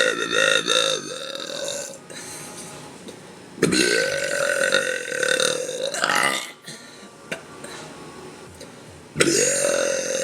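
A woman's long, deep burps, three of them: one tailing off about two seconds in, a second held at a steady pitch for about two and a half seconds from around three and a half seconds in, and a third starting near the end.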